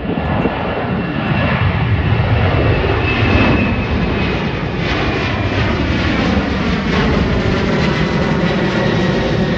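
Jet airliner passing low overhead: a loud engine roar that comes up sharply at the start and holds, with a whine slowly falling in pitch as it goes by.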